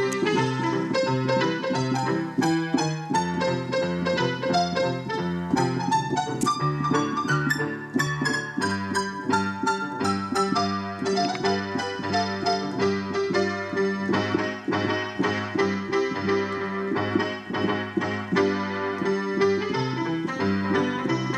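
Solo piano music from a digital stage piano: a continuous run of quick notes.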